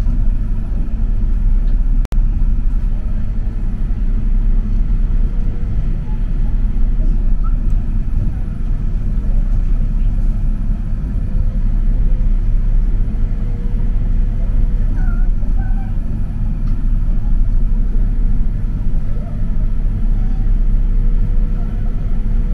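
Mitsubishi Crystal Mover light-rail car running along its guideway: a steady low rumble from the rubber tyres on the concrete track with a faint steady motor whine. The sound drops out for an instant about two seconds in.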